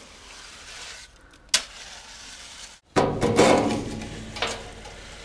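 Small trowel scraping and packing wet concrete into a steel keel, a gritty scraping that starts loudest about three seconds in and fades. Before it, a quieter gritty rustle of the wet concrete mix with one sharp click.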